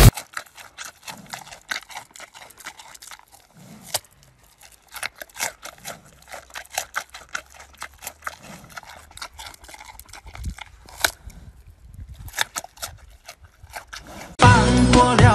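A giant panda chewing a chunk of pumpkin: irregular crunching, smacking bites. Music comes in loudly near the end.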